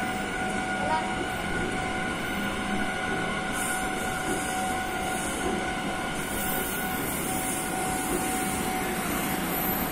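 Taiwan Railway electric commuter train passing close by on the tracks: a steady rumble of wheels on rail with a steady high whine running through it.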